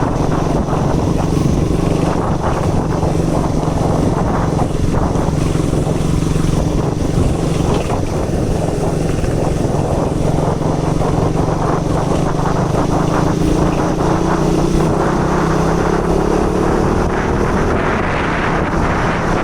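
KTM Duke 200's single-cylinder engine running under way, holding a steady note, with the revs climbing gradually through the last third.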